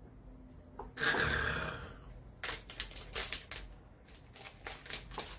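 A rustle lasting about a second, then a run of light clicks and taps from objects being handled.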